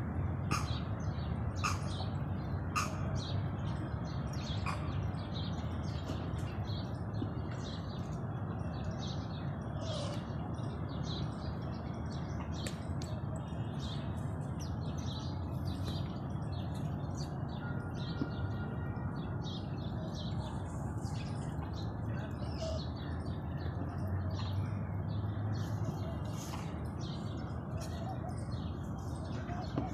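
Birds chirping in many short, scattered calls throughout, over a steady low hum.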